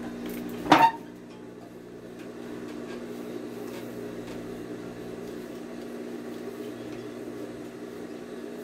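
A steady low hum, with one sharp knock a little under a second in.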